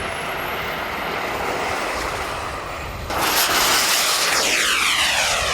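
Jet aeroplane flying past: a steady rush of engine noise with a faint high whine rising in pitch. It grows louder about three seconds in, then a sweeping whoosh falls in pitch as it passes.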